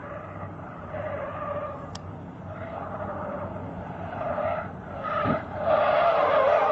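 Car tyres squealing as cars slide sideways on asphalt, a wavering squeal that gets much louder in the last second or so. There is a dull thud a little after five seconds.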